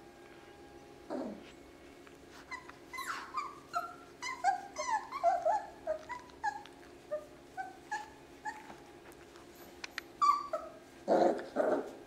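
German shorthaired pointer puppies whimpering and yipping in quick succession while they play, many short high calls falling in pitch. Near the end come two louder, lower calls.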